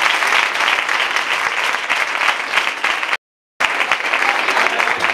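Audience applauding: a dense, steady clatter of many hands clapping. The sound cuts out completely for about half a second just after three seconds in.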